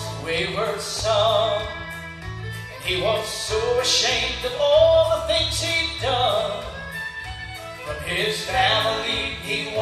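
Southern gospel vocal group singing in harmony over an instrumental accompaniment, with long held notes sung with vibrato.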